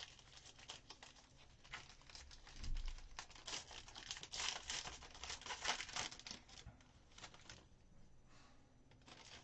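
Foil trading-card pack wrapper crinkling and tearing as it is opened and emptied by hand. There are many quick crackles, busiest in the middle, and a soft thump about three seconds in.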